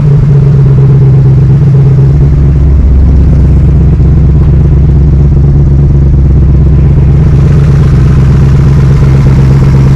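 Small-block Ford V8 of a Shelby Cobra replica idling steadily, run up after a fresh oil and filter change. A deeper low rumble joins about two seconds in.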